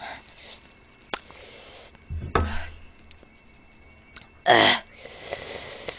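Mouth clicks of eating spicy chicken feet and a dull thump a little past two seconds in, then a loud sharp breath near the end followed by a hissing exhale: a reaction to the heat of the spicy sauce.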